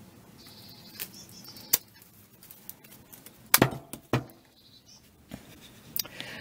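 A handful of short clicks and knocks from gardening scissors and a metal pot being handled and set down on a wooden potting table, the loudest about three and a half seconds in with another just after.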